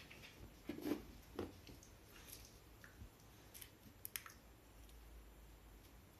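Faint, scattered clicks and soft taps from a Shiba Inu moving about with a rope toy in its mouth and setting it down, with a sharper pair of clicks about four seconds in.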